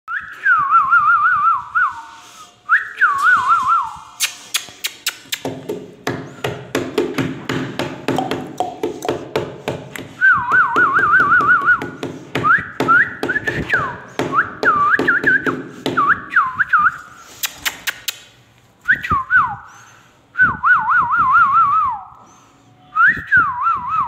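Caged pet birds giving loud, repeated warbling whistles, each a short trill wavering quickly between two pitches, with rapid clicking and rough chatter in between.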